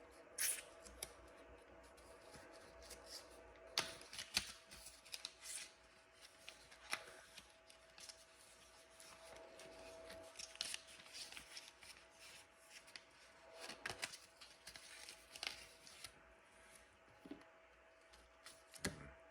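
Scattered faint clicks, scrapes and rustles of small metal parts being handled on a Glock 26 pistol: its trigger pin and locking block pin being picked up and fitted. A faint steady hum runs underneath.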